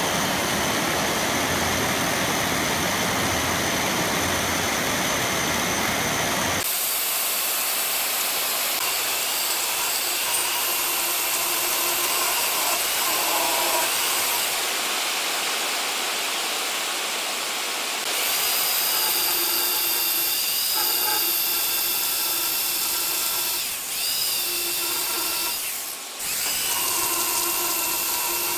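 Corded electric chainsaw cutting along a curve through a thick wood slab, its motor whining steadily under load. The sound changes abruptly about seven seconds in and dips briefly twice near the end.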